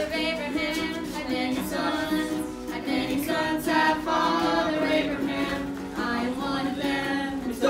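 Several voices singing a song together, accompanied by a strummed ukulele.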